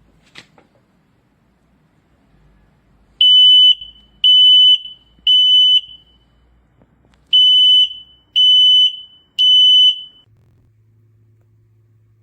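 Brennenstuhl RM L 3100 smoke detector sounding its alarm: loud, high-pitched beeps in two groups of three with a pause between, the standard three-beep smoke-alarm pattern.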